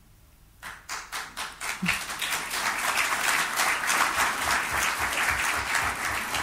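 Audience applauding: a few scattered claps under a second in, swelling into full, dense applause.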